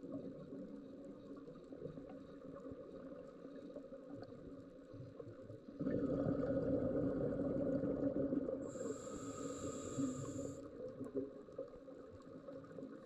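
Underwater ambience with a low steady hum, then a scuba diver's breath through the regulator. About six seconds in, exhaled bubbles rumble loudly for about five seconds, and a high hiss joins near the end of the bubbling.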